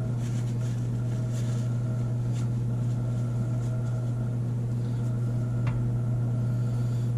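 A steady low electrical hum, with faint crinkling of a paper wrapper being handled.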